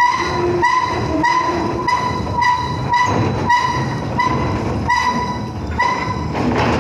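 A steel rail sliding over steel rollers on a rail-unloading wagon as the rake moves slowly forward: a short ringing metallic squeal repeats about every two-thirds of a second over a steady low rumble.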